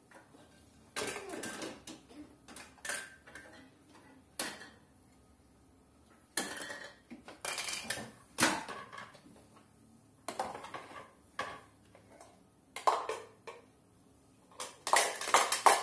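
Small toy pots and pans clattering as a baby bangs them and knocks them against a play kitchen and the floor: irregular clangs and knocks in short bunches, with quiet gaps between them.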